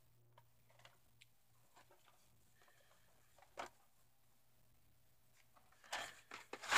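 Faint handling noise of a VHS tape being turned over in the hand: a few soft clicks, one sharper tap about three and a half seconds in, and louder rubbing and knocking near the end.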